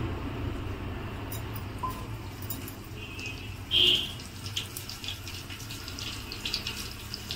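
Green chillies sizzling and crackling in hot oil with asafoetida in an aluminium pot over a gas burner, the crackles scattered and thickening in the second half. Under it runs a steady low hum, and a short high squeak comes about halfway through.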